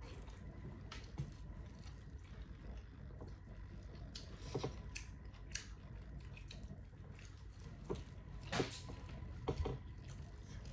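Someone eating boiled seafood: quiet chewing with scattered small clicks and cracks, and a few louder ones about halfway through and near the end.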